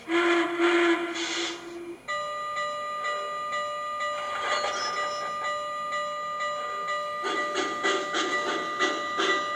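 Sound system of an MTH HO-scale 4-8-4 GS-4 steam locomotive model playing a departure: a whistle blast for about two seconds, then a bell ringing steadily. From about seven seconds in, steam exhaust chuffs begin at a steady beat as it pulls out.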